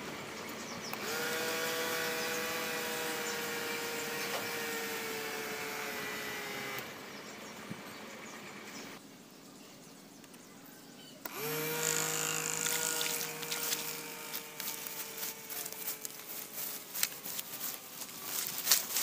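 Small DC hobby motors spinning the plastic propellers of a homemade bottle airboat: a steady electric whine that starts about a second in, drops away after about seven seconds, and starts again sharply about eleven seconds in. Its pitch sags slowly each time, and scattered clicks and knocks come in the last few seconds.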